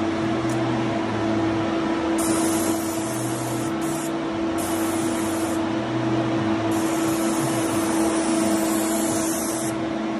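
Graco FinishPro air-assisted airless spray gun hissing as it sprays lacquer in three passes: about a second and a half starting two seconds in, about a second near the middle, and a longer three-second pass near the end. A steady hum runs underneath.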